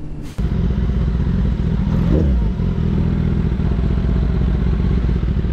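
Motorcycle engine running steadily, heard close up from a camera mounted on the bike, its sound sitting mostly in the low range.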